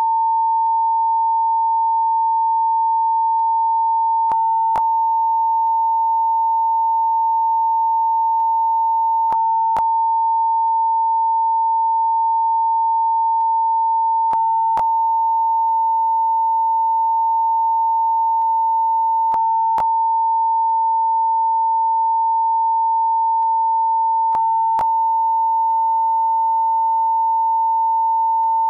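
Censor beep: a single steady pure tone of about 1 kHz, held unbroken at a constant level.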